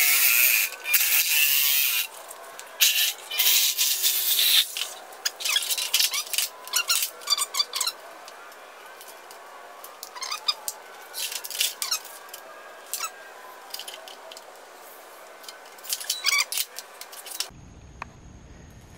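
Handheld electric sheet metal shears cutting through a steel sheet: a loud, steady high-pitched grinding buzz for about two seconds, then a few short bursts of cutting until about five seconds in. After that come lighter scattered clicks and scrapes on the metal sheet.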